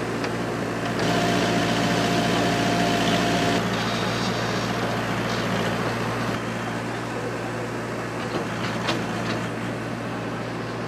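Excavator's diesel engine running steadily, its hum louder for a couple of seconds shortly after the start, with a steady whine over it.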